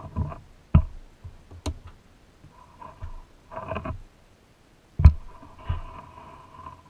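Hollow plastic toy-truck body being handled and set down on a carpeted bench: a handful of light knocks and thumps, the loudest about five seconds in as it is pressed against a UV lamp's housing, with a faint steady hum in the second half.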